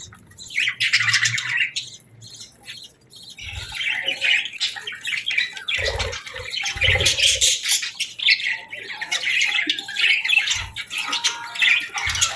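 Budgerigars chattering and squawking in a busy, continuous warble, with a few brief low thumps.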